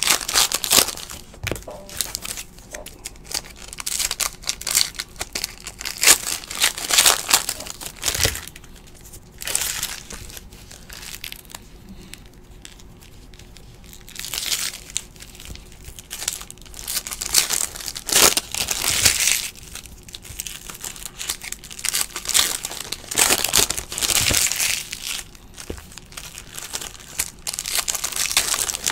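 Plastic-foil trading-card pack wrappers crinkling and tearing as packs are ripped open by hand. The sound comes in repeated bursts with quieter stretches between them while the cards are handled.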